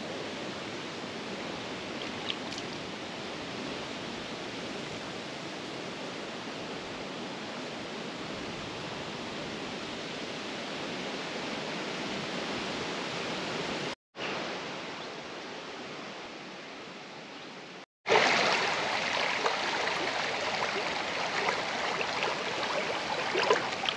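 River water running steadily, an even rushing hiss. It drops out briefly twice and comes back louder after the second break.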